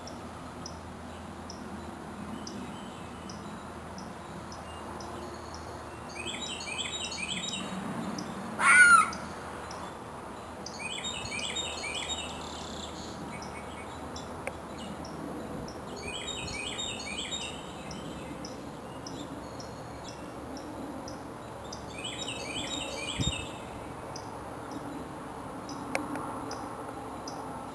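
Wild birds calling in woodland: a short chirping phrase repeated every few seconds, and one loud, harsh call that sweeps upward about nine seconds in.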